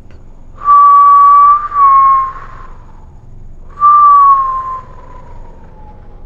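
Whistling: a high held note, a short slightly lower note, then a note that slides slowly downward, each with a breathy edge.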